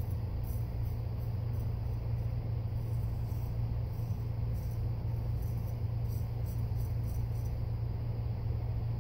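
A 7/8-inch straight razor scraping through lathered stubble in short strokes, a faint crisp rasping that comes and goes, over a steady low electrical-type hum.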